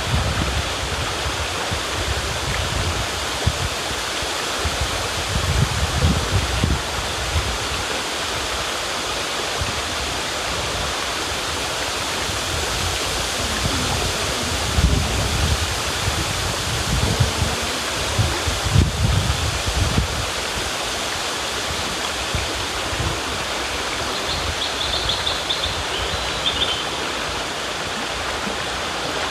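A river rushing steadily, with uneven deep rumbles swelling now and then. A few faint high chirps come in near the end.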